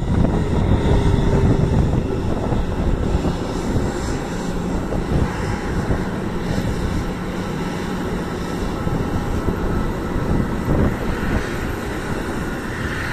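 Airbus A320 airliner taxiing, its twin jet engines running at low taxi power with a steady rumble that holds throughout.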